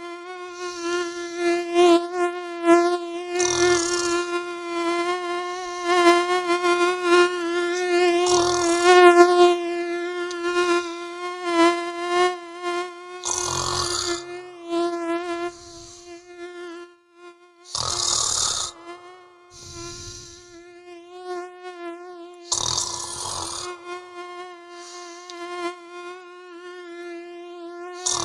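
A mosquito whining steadily, its pitch wavering slightly, while a person snores, with a loud breathy snore about every four to five seconds.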